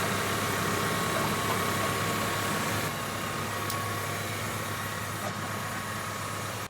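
Tractor engine running steadily, with the feeding wagon hitched on for loading; the sound drops slightly about halfway through.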